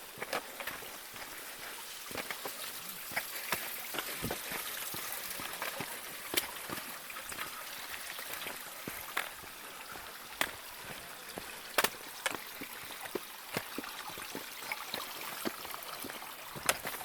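Mountain stream flowing steadily, with irregular sharp knocks of footsteps on the stony trail beside it.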